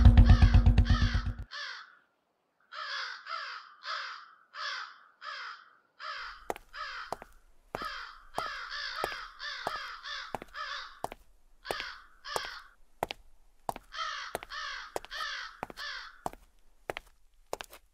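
Crows cawing over and over, in runs of several harsh caws with short gaps between the runs. From about six seconds in, sharp clicks come roughly twice a second alongside the caws. A loud, low, pulsing sound cuts off abruptly in the first second and a half.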